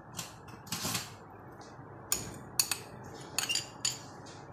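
Glass bowls clinking and knocking together in a series of short, sharp taps, most of them in the second half, as chopped green chillies are tipped and knocked out of a small glass bowl onto minced meat in a larger glass dish.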